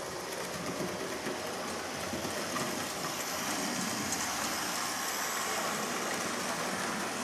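Hornby OO-gauge Hogwarts Express model locomotive running round the layout: a steady whirr of its small electric motor with the rush of wheels on the rails, growing a little louder.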